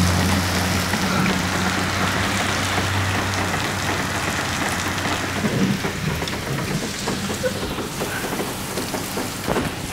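Heavy rain, with water pouring through a leaking fuel-station canopy roof and splashing down as a steady hiss. Scattered sharper drip splashes stand out in the second half, and a steady low hum fades out about three seconds in.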